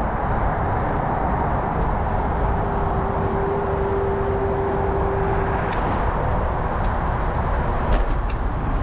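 Steady wind and rolling noise from riding a bicycle, heard from a bike-mounted point of view. A faint steady tone sounds for about three seconds in the middle, and a few sharp clicks come in the second half.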